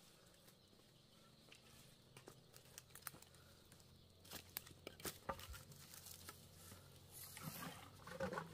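Faint scattered knocks and clatter of bamboo poles being handled and set down, with footsteps rustling and crackling on dry leaves and litter, the rustling growing denser near the end.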